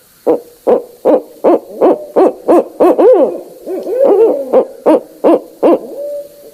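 Barred owl calling: a rapid run of loud hoots, about two and a half a second. About three seconds in, the hoots break into wavering notes that rise and fall, then return to hoots and end on a short held note.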